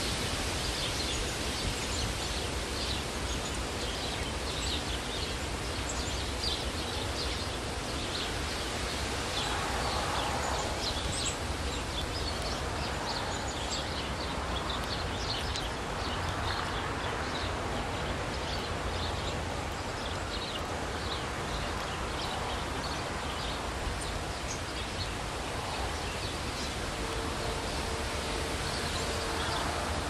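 Wind blowing through trees, a steady rustling hiss, with many short high chirps scattered throughout. A faint steady hum comes in near the end.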